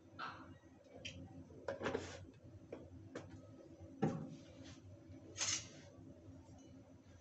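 Scattered kitchen handling sounds around a kadhai: a few sharp knocks and clicks, the loudest a thump about four seconds in, and a short hiss a little later, over a low steady hum.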